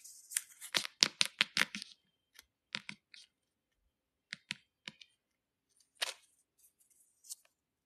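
Light clicks and taps: a quick run of about eight in the first two seconds, then scattered single clicks every half second to a second or so.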